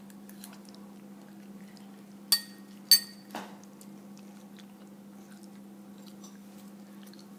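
Cutlery clinking sharply twice against a dish during a meal, about half a second apart, followed by a softer knock, over a steady low hum.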